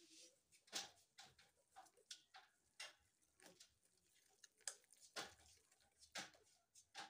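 Wire whisk clicking and tapping against a glass mixing bowl as pancake batter is whisked by hand: faint, irregular ticks.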